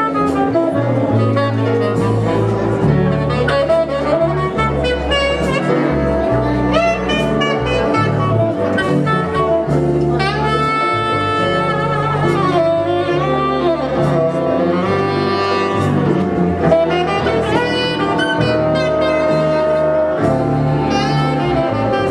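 Instrumental jazz music with a saxophone playing the melody over a stepping bass line.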